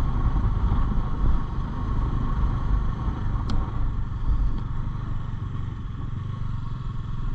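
Bajaj Dominar's single-cylinder engine pulling the motorcycle up a steep mountain road, a steady low rumble mixed with wind noise on the microphone. The engine is labouring in the thin high-altitude air and short of oxygen, but still climbing.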